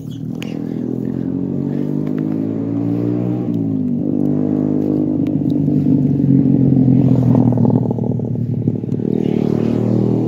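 An engine running steadily and gradually growing louder. Its pitch dips about a third of the way in, then rises and holds.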